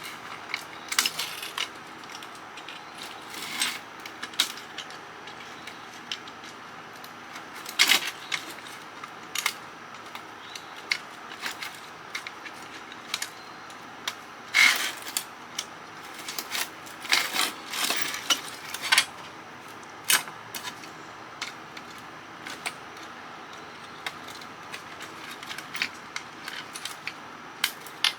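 Irregular clicks, snaps and clatter of hand tools working on the inside of a CB radio, pulling and cutting wires off its circuit board and metal chassis.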